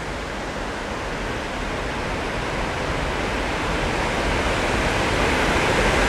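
Water pouring steadily over a long, low dam on a river: an even rush of falling water that grows gradually louder toward the end.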